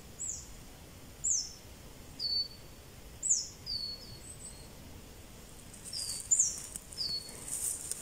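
A small bird calling: short, high, downward-slurred notes, repeated irregularly about nine times, some in quick pairs.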